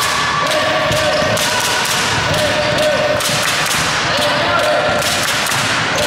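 Basketball game play on an indoor court: a ball bouncing with thuds, short repeated squeaks, over a steady background of players' and spectators' voices.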